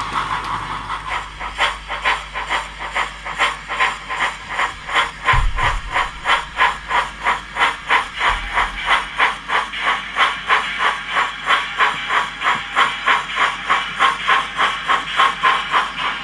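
DCC sound decoder in a model steam locomotive chuffing steadily, about three chuffs a second, as it hauls a goods train.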